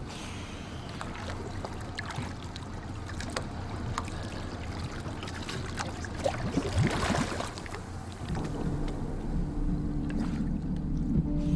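Water sloshing and splashing as a scuba diver enters the sea beside a small boat, with scattered clicks and knocks. About six seconds in comes a louder gush of bubbling water as he goes under. A low steady hum sets in about eight seconds in.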